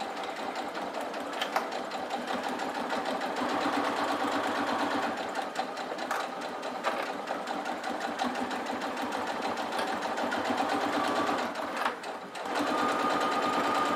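Domestic electric sewing machine running at slow speed, stitching a straight seam through fabric and a zip, with a brief pause near the end.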